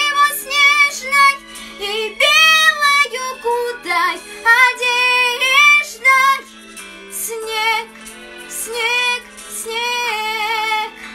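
A girl singing a ballad over instrumental backing music, her notes wavering, ending on a long held note near the end.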